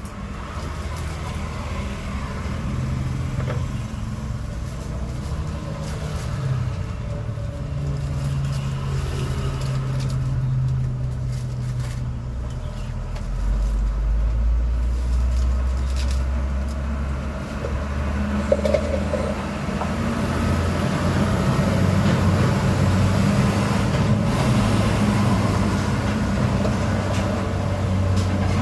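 Motor vehicle engines running close by: a low hum that shifts in pitch every few seconds. There is a short, sharp knock about two-thirds of the way through.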